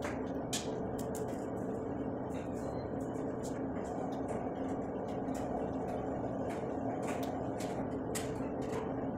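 Small, sharp clicks and taps of plastic joints and metal tubes on a clothes drying rack being handled and fitted together, coming every fraction of a second to a second. Behind them is a steady hum with two faint held tones.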